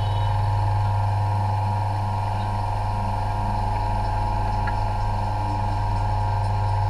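A steady low hum with no breaks or changes in pitch, with one faint tick near the middle.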